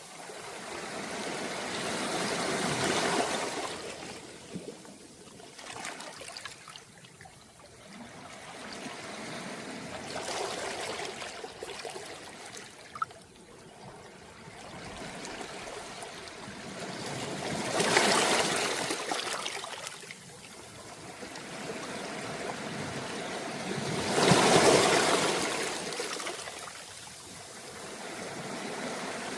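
Small, calm sea waves washing in on a beach of round pebbles. The wash swells and fades about every seven seconds, four times in all, and the last two waves are the loudest.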